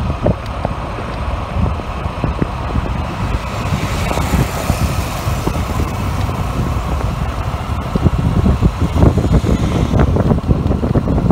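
Wind buffeting the microphone of a camera carried in a moving vehicle, over the vehicle's engine and road noise; the rumble grows louder and gustier about eight seconds in.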